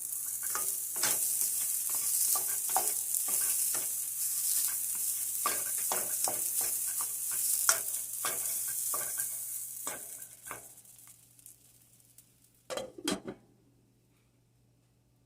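Rice frying in oil in a non-stick pot, sizzling, while a utensil stirs and scrapes through it in many short clicks. The sizzle fades out after about ten seconds, and a few louder knocks follow near the end.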